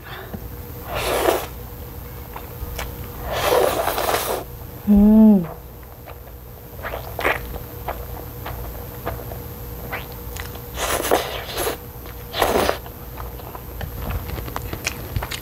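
Chapaguri black-bean instant noodles being slurped off chopsticks in about four short, noisy sucking bursts, with small wet chewing clicks between them and a brief hum about five seconds in.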